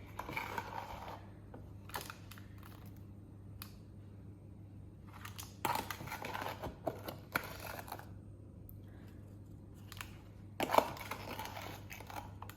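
Kitchen handling noises: scattered scraping and rustling bursts a few seconds apart while the drizzle of sugar and lemon juice is made, over a low steady hum.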